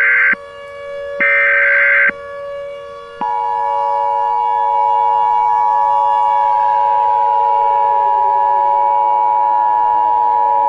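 Emergency Alert System tones: the last rasping SAME header data burst ends about two seconds in. About a second later the steady two-tone EAS attention signal (853 and 960 Hz) starts and holds, marking the start of an emergency alert. Under it a steady siren tone sounds, and from about six seconds a siren winds down, falling in pitch.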